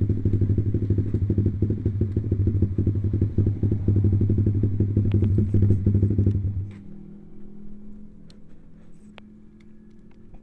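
Honda CB150R's single-cylinder engine running as the motorcycle rides along, then about two-thirds of the way in dropping to a much quieter, steady idle as the bike slows at the roadside.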